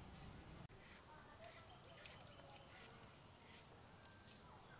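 Papaya being diced on a boti, an upright curved blade fixed in a wooden base: faint, sharp snicks as the blade cuts through firm half-ripe papaya, about ten of them starting about a second and a half in.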